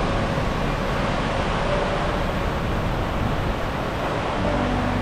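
A vehicle on the move, most likely a four-wheel drive on a dirt road: a steady rumble of engine and road noise. A faint steady hum joins near the end.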